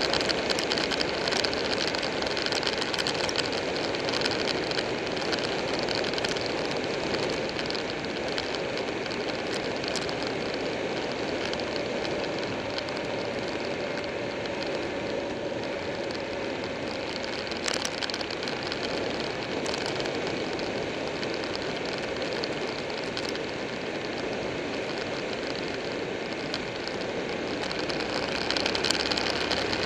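Wind and road noise from a Buell 1125R motorcycle riding at speed, with its 1125 cc V-twin engine running underneath. It grows a little louder near the end.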